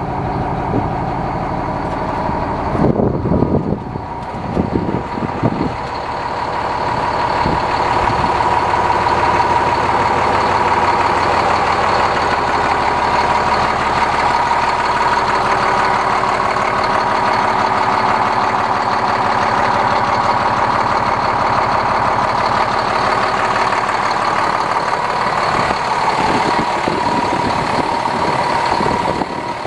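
Heavy diesel engine of a 2008 International 7600 plow truck running steadily, with a steady high whine over it. A few loud knocks and rumbles come about three to five seconds in.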